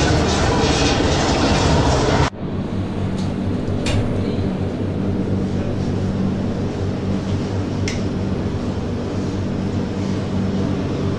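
Background music cuts off abruptly about two seconds in, leaving a steady low machine hum with a few short clicks.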